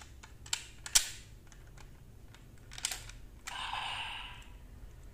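Hard plastic clicks and clacks as the purple Zombie Raise Buckle is unclipped from a DX Magnum Shooter 40X toy gun, the sharpest about a second in, then a brief rubbing scrape a little past halfway.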